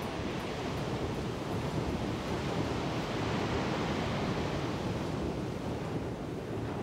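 Steady rushing noise of sea and wind, an even wash without distinct waves or tones.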